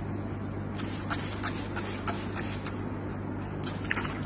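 Hand-held trigger spray bottle squirting again and again in short hissy sprays, over a steady low hum.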